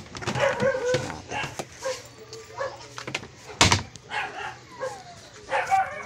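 A dog barking repeatedly in short yaps, with a single sharp knock about three and a half seconds in.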